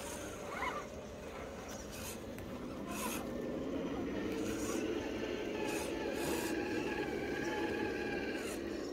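Radio-controlled scale crawler's electric motor and gear drive whining as it crawls, the whine wavering in pitch and getting louder from about halfway. Tyres scrape and rub over the ground, with a few sharp clicks.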